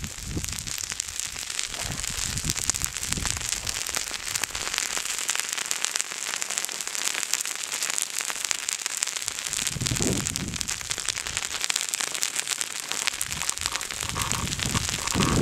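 Fresh pahoehoe lava advancing over older lava flows, crackling and popping continuously as the hot lava covers and breaks the older lava crust.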